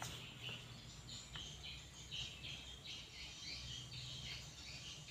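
Faint chirping of small birds, many short irregular notes, over a low steady background hum.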